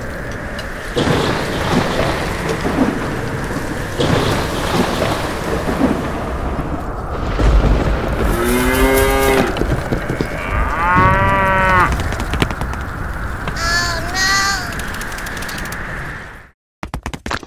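Steady rain with rolls of thunder, and cattle mooing three times in the middle stretch, the third moo higher-pitched. The sound cuts out abruptly near the end.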